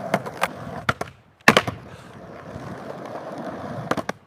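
Skateboard wheels rolling on a hard surface with sharp clacks of the board hitting. There is a brief break and a loud clack about a second and a half in, and more clacks near the end.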